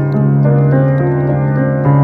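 Solo piano improvisation: a held low bass note under a melody of single notes changing every fraction of a second, with a new bass note struck near the end.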